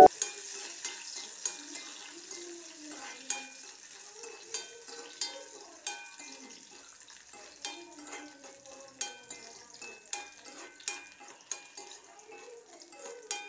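Steel spoon stirring raisins frying in ghee in a steel pan: irregular metallic clinks and scrapes against the pan, roughly one to two a second, over a faint sizzle of the hot ghee.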